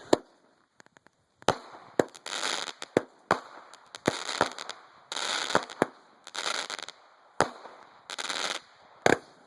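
Consumer fireworks going off: a string of sharp bangs about once a second, with short bursts of crackling between them.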